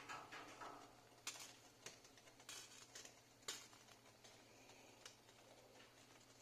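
Near silence with a low hum and a few faint, scattered clicks.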